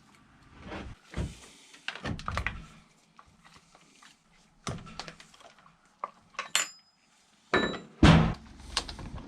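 Scattered knocks, clicks and thunks of tools and plastic and metal parts being handled as an Echo CS-620 chainsaw is taken apart for cleaning, with a short bright metallic clink about six and a half seconds in and a heavy thunk near the end, the loudest sound.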